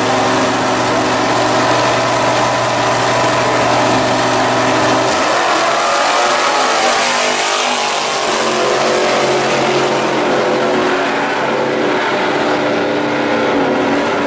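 Two drag-race cars' engines, a gasser coupe's and a muscle car's, held at steady revs on the starting line, then launching about five seconds in. The engines then accelerate hard down the strip with climbing, shifting engine notes.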